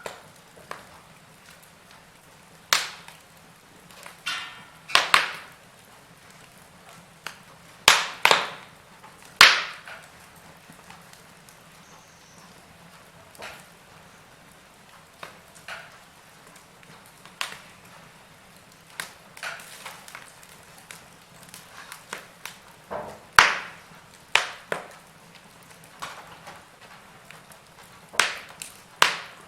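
Wood fire crackling, with sharp pops at irregular intervals over a faint low hiss; a few pops are much louder than the rest.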